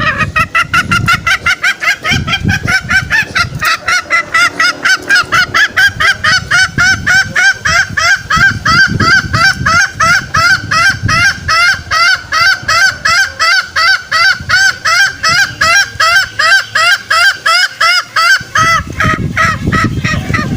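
Green junglefowl lure call: a continuous rapid series of short, nasal, pitched notes, about four to five a second, used to draw wild green junglefowl in.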